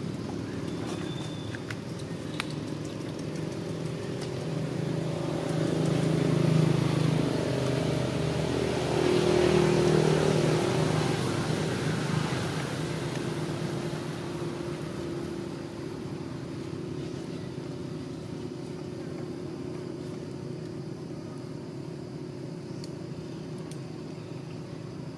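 A motor vehicle's engine passing by: a low hum that grows louder about five seconds in and fades away again over the following several seconds.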